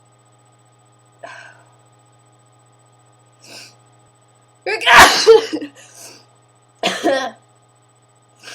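A person sneezing in an allergy fit: a couple of faint breaths, then one loud sneeze about five seconds in, followed by a second, shorter burst about two seconds later.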